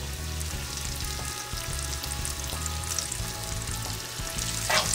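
Seafood spring rolls shallow-frying in hot oil in a skillet, a steady sizzle.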